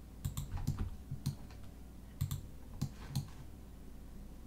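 Computer mouse clicking: about nine sharp, irregular clicks, some in quick pairs, as edges are selected one by one, over a faint low hum.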